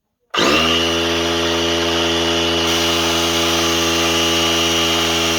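Conventional electric air compressor switched on, starting abruptly a fraction of a second in and running loud and steady as it pumps air into its tank.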